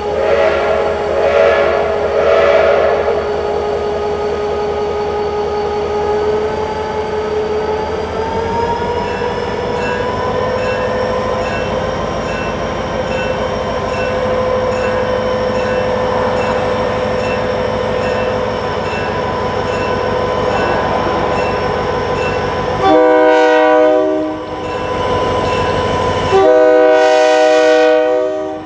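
A GP39RN diesel locomotive running as the train draws closer, its engine pitch rising about eight seconds in. Near the end the lead unit's Nathan K3LA air horn sounds two blasts, the second one longer.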